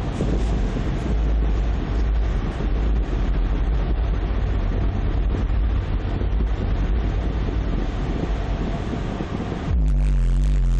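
Car subwoofers, a 12-inch Alpine Type X and a 10-inch Pioneer in a ported box, playing heavy bass at high power, heard as a loud, rumbling, noisy wash. Near the end the sound changes to louder, cleaner, steady deep bass notes.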